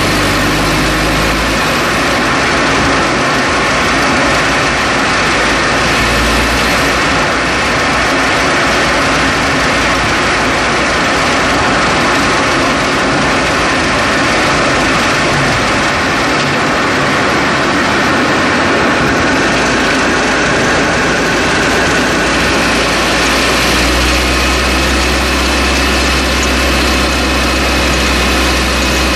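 Steady, loud road and tyre noise of a 2011 Chevrolet Cruze on the move, picked up by a microphone strapped to its front right strut beside the wheel. A deep rumble swells briefly near the start, again about six seconds in, and from about three-quarters of the way through.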